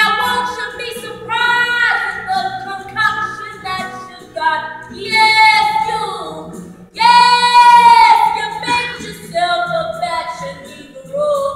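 A young woman singing solo, with held notes that bend in pitch, and one long, loud high note about seven seconds in.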